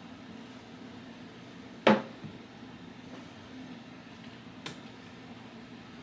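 One sharp, hard knock about two seconds in, with a brief ringing tail, and a faint click near the end, over a low steady hum.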